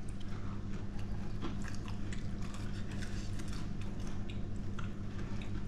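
A person chewing a mouthful of stuffed jalapeno popper, a run of small irregular clicks from the mouth, over a steady low hum.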